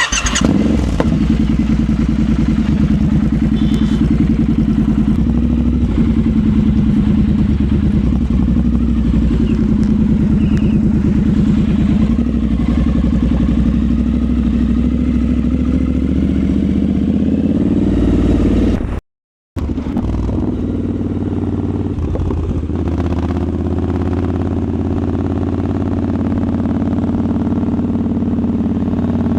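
Triumph Scrambler 1200's parallel-twin engine running steadily under way, heard from onboard the motorcycle, its pitch rising a little past the middle. The sound cuts out completely for about half a second roughly two-thirds of the way through, then resumes.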